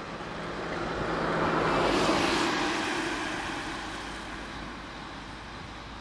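A road vehicle passing by, its noise swelling to loudest about two seconds in and then fading away.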